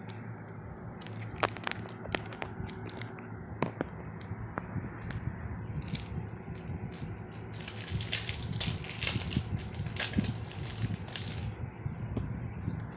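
Foil wrapper of a Yu-Gi-Oh booster pack being handled and torn open: scattered crinkles and clicks, then denser crackling from about eight to eleven seconds in.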